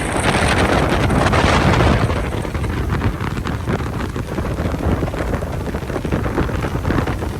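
Motor yacht under way: its twin Volvo Penta 300 hp engines running beneath water rushing past the hull, with wind buffeting the microphone hardest in the first two seconds.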